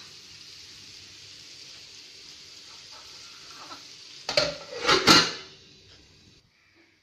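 Onions, chillies and curry leaves sizzling in oil in a nonstick pan. About four seconds in, a glass lid with a steel rim clatters onto the pan, and the sizzle dies down once the pan is covered.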